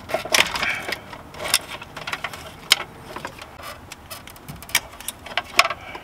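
Irregular plastic clicks, knocks and rattles from handling a car radio pulled out of the dash and unplugging its wiring harness connectors. The loudest clicks come about halfway through and near the end.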